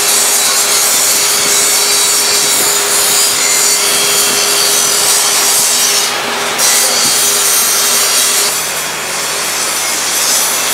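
Powder coating equipment running: a steady, loud rushing hiss of air with a faint steady hum underneath. The hiss dips briefly about six seconds in, and the hum drops lower near the end.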